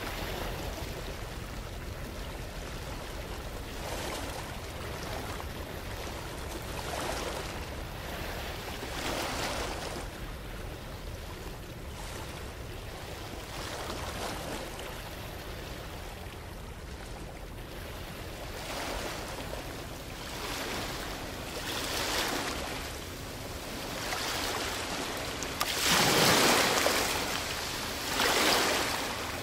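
Soundscape of surf-like noise that swells and fades every few seconds, the largest swell near the end.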